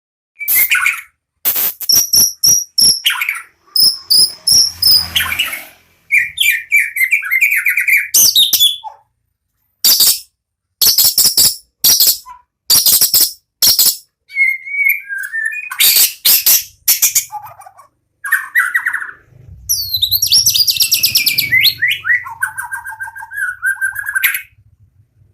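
White-rumped shama (murai batu) singing in full, continuous song. Its varied phrases come in bursts with short pauses between them, harsh rattling notes alternating with clear whistles and fast trills.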